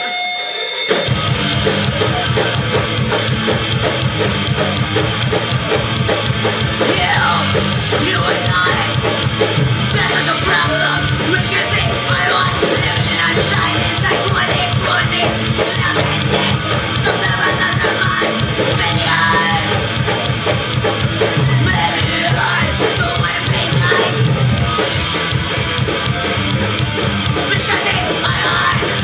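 Punk band playing live at full volume as a song kicks in: drum kit and electric guitars, with yelled vocals coming in several seconds later.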